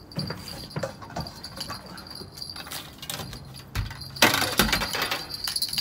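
Spinning reel's drag clicking in a rapid, steady metallic run as a hooked striped bass pulls line off. About four seconds in there is a loud rustle with a couple of low knocks from handling in the boat.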